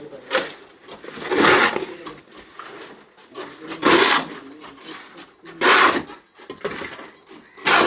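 Four short scraping, rushing noises a second or two apart, over a lower rustle, typical of wet concrete being tipped and shovelled onto formwork.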